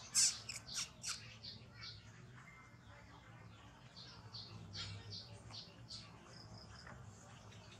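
Baby macaque squeaking and crying in short, high-pitched calls, a quick loud run of them in the first second and more scattered calls about four to six seconds in.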